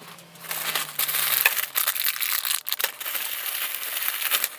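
Plastic packaging crinkling and rustling as hands rummage through it in a cardboard box, starting about half a second in, with a few light clicks.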